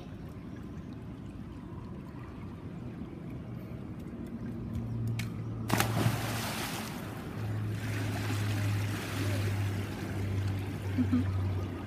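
A child jumping into a swimming pool: one sharp splash about halfway through, followed by a few seconds of water splashing and churning as he surfaces and swims.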